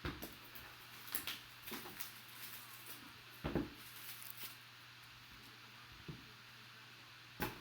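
Trading-card box and packaging being opened and handled by hand: scattered soft rustles, taps and crinkles, the loudest about three and a half seconds in and another near the end.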